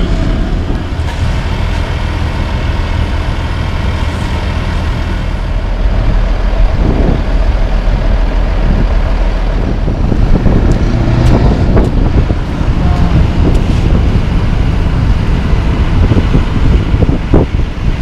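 Heavy diesel engines of road-paving machinery running steadily, joined by gusts of wind on the microphone; it grows louder and rougher about halfway through.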